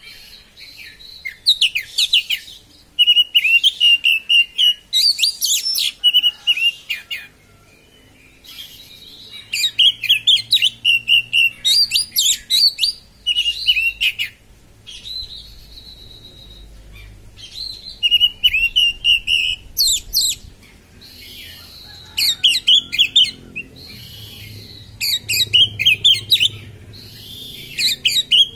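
Oriental magpie-robin (kacer) singing the fast, sharp 'konslet' style of song: rapid runs of shrill, chattering notes in bouts of one to a few seconds, over and over with short pauses between.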